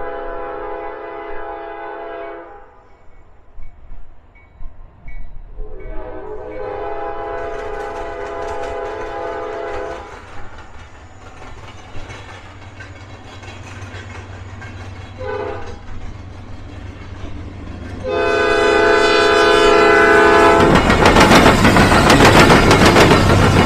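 Locomotive horn sounding the grade-crossing signal, long, long, short, long, as a train approaches. About twenty seconds in, the loud noise of the train passing close takes over.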